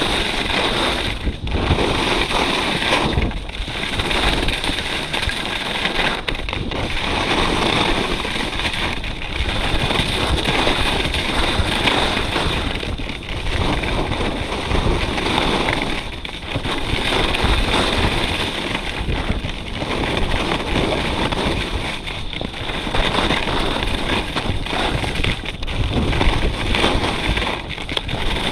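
Wind rushing over the microphone and skis scraping and hissing over the snow during a fast downhill ski run at about 30–40 km/h. The noise swells and drops back every two to three seconds as the skier links turns.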